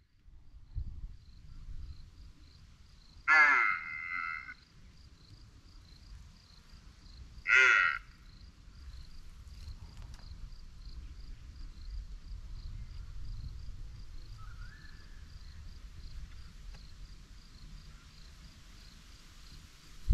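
A bird gives two loud, harsh, rasping calls about four seconds apart, over a faint, steady, evenly pulsing insect chirp.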